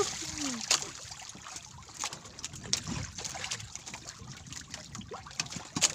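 Water lapping and trickling against a small wooden outrigger boat's hull, with scattered sharp clicks and knocks as a longline and its hooked fish are hauled aboard.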